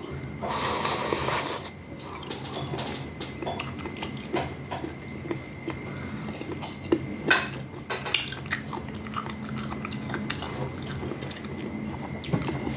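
A person eating a bowl of spicy rice noodle soup with meatballs: wet chewing and biting, with small clinks of cutlery against the bowl. There is a longer noisy rush about half a second in and a couple of sharper clinks around the middle.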